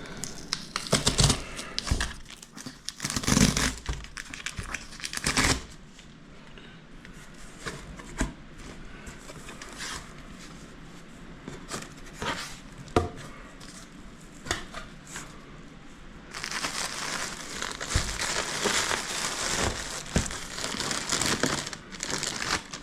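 A shipping package being unpacked by hand: the packaging crinkles and tears in bursts with scattered clicks and rustles, then crinkles continuously for the last several seconds.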